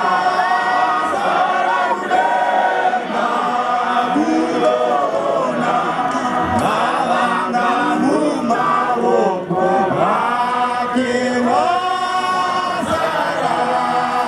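A choir of many voices singing together, continuously.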